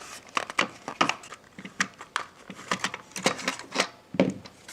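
A Tyco VideoCam toy camcorder's plastic housing being pried apart: a run of irregular sharp clicks, snaps and knocks of plastic parts.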